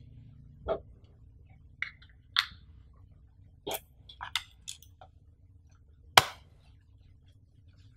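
Samsung Galaxy Buds plastic charging case being handled, making a string of small sharp plastic clicks and taps. The loudest is a single sharp knock about six seconds in, as the case is set into the cardboard box tray.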